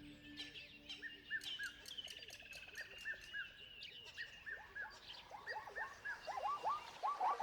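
Several birds calling together: rapid, repeated short arching notes with sharp high ticks among them. The calls grow denser and louder toward the end.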